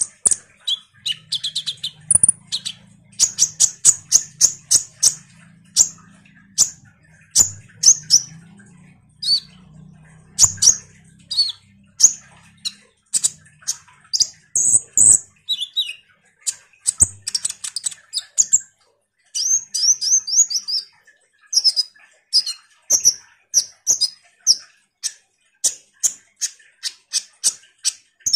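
Female kolibri ninja sunbird (konin) calling excitedly in a long, rapid series of short, sharp high chirps, with a few quick twittering trills about two-thirds of the way in. A faint low hum sits underneath for the first half.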